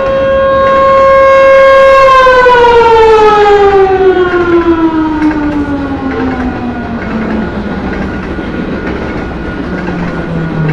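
Federal Signal Thunderbolt 1000 rotating outdoor warning siren sounding a steady wail, then about two seconds in its pitch starts to fall and keeps sliding lower as the siren winds down at the end of its test run.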